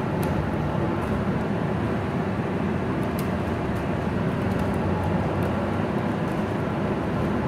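MAN NL323F Lion's City city bus driving, heard from inside the passenger cabin: steady engine and road noise with a few faint ticks and rattles.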